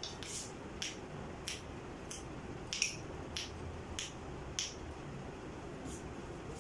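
African grey parrot making a series of short, sharp beak clicks, about one every half second to second, the loudest about three seconds in.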